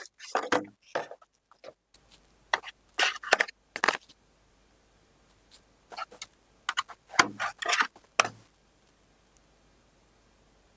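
Handling noise from unboxing a smartphone: three short clusters of scrapes and light knocks as the box and its contents are handled, with quiet pauses between.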